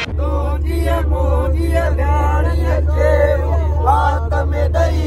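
Several young men singing and chanting together inside a moving van, their voices wavering in pitch, over the steady low hum of the van's engine and road noise.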